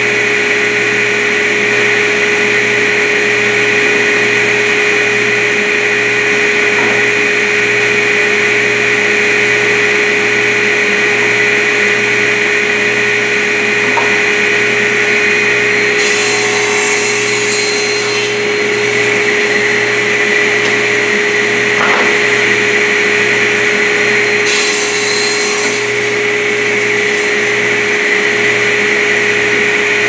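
Sliding table saw running steadily with its dust extraction, crosscutting wooden door stiles and rails to length. The blade goes through the wood twice, about eight seconds apart, each cut adding a burst of hiss about two seconds long.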